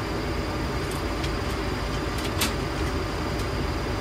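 Steady flight-deck noise of a Boeing 737-800 in descent, a constant rushing rumble, with a few faint short clicks, the sharpest about halfway through.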